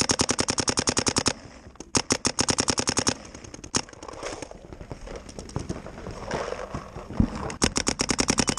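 Paintball markers firing rapid strings of shots, about a dozen shots a second, in three loud bursts. Between the second and third bursts there is a single shot and then only fainter shots.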